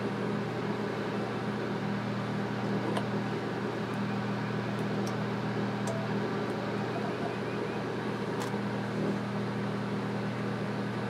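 Steady low mechanical hum with a faint hiss over it, and a few faint light clicks scattered through.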